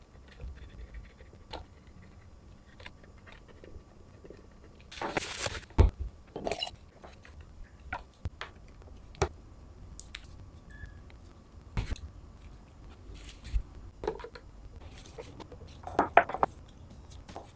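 Scattered light clicks and knocks of objects being handled, with a few sharper knocks about 6, 12 and 16 seconds in.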